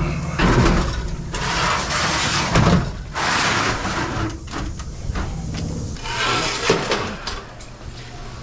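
Scraping, sliding and knocking of objects being handled, in several bursts with a few sharp clicks, over a steady low mechanical hum that drops away near the end.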